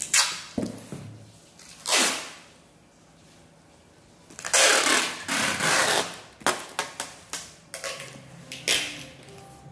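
Packing tape being pulled off its roll and stuck onto a cardboard box in several loud rips: short ones near the start and about two seconds in, a long pull around the middle, then a quick run of short crackles.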